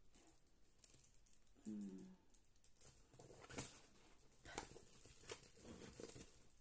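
Near silence with faint handling of a large paper sheet: soft rustles and a few light clicks and taps, plus one brief low hum about two seconds in.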